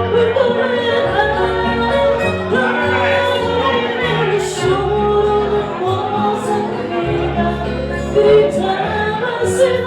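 Fado music: a woman singing a wavering melody over instrumental accompaniment with sustained low bass notes.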